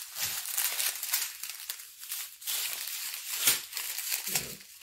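Thin plastic bags crinkling and crackling as small packets of diamond-painting drills are pulled out of a larger plastic bag and laid down, with a sharper crackle about three and a half seconds in.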